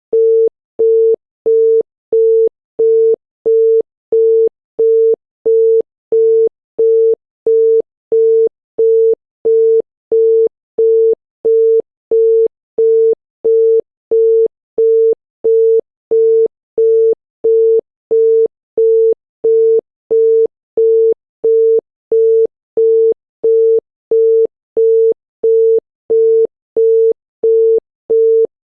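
Obsolete Thai telephone busy tone: a single steady 450 Hz tone beeping on and off in equal short pulses, about one and a half a second. It signals that the connection was made but the called line is busy.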